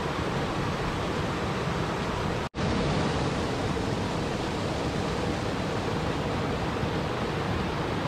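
Waterfall water rushing steadily over rocks. About two and a half seconds in, the sound cuts out for a split second and resumes.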